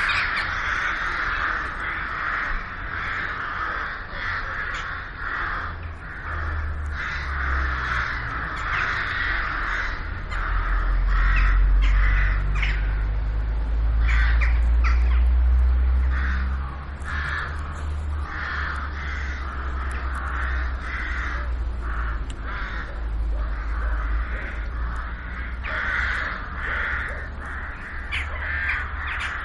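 A flock of crows cawing, many harsh calls overlapping and repeating without pause. Under them runs a low rumble, loudest around the middle.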